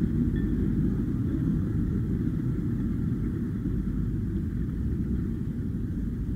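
Cigarette Top Gun GT powerboat's V8 engines running at low speed, a steady low rumble that fades slightly as the boat idles away from the dock.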